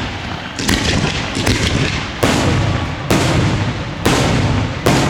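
Aerial fireworks bursting in quick succession, about one sharp bang a second, six in all, over a continuous low rumble, with some crackling near the start.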